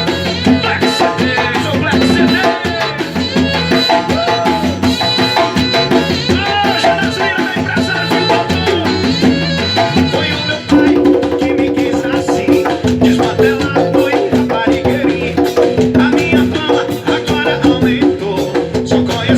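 Lively Latin-style music with drums and shaker percussion under a melody line that slides between notes; about eleven seconds in the music changes to a steadier, repeating figure.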